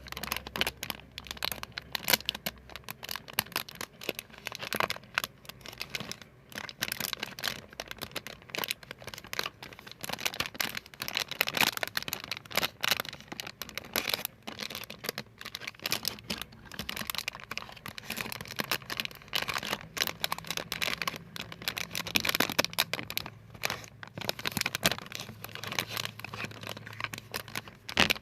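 Rapid, irregular crinkling and crackling, as of a material being handled and crumpled close to the microphone.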